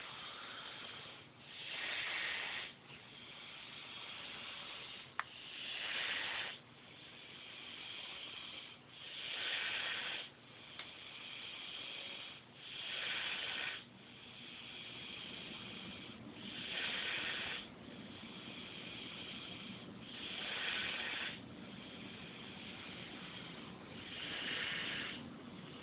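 Snoring: a louder breathy rush about every three and a half to four seconds, each lasting about a second, with quieter steady breathing noise between.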